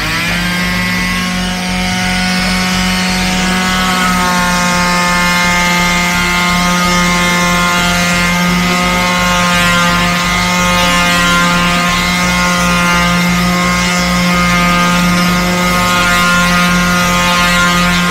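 Electric orbital finishing sander running steadily at full speed, its sanding pad working over a flat laser-cut plywood panel.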